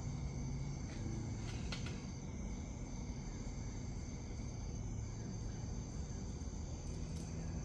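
Steady chorus of night insects such as crickets, several high continuous trills held at even pitch, over a low rumble.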